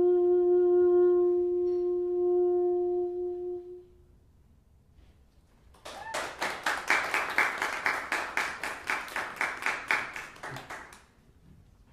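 A saxophone holds the final long note of the tune, fading out after about four seconds. After a short pause, a small audience claps for about five seconds.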